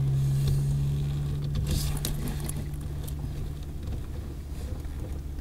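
Car driving, heard from inside the cabin: a steady low engine and road drone that eases off after about four seconds, with a few faint rustles.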